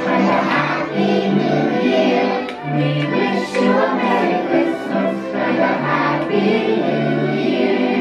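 Music: a group of voices singing a song over an instrumental backing with held low notes.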